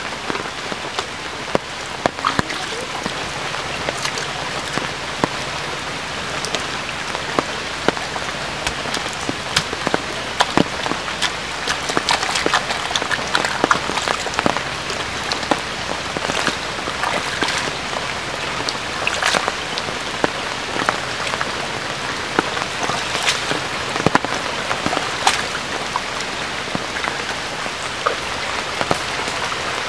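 Rain falling on shallow water and mud: a steady, even patter with many sharp individual drop hits.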